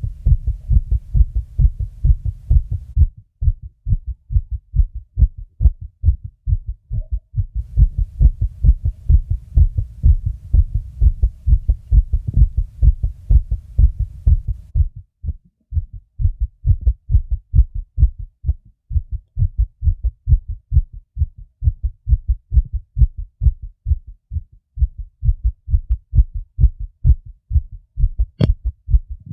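A person's heart beating fast: rapid, evenly spaced low thumps with no pause. A sharp click comes near the end.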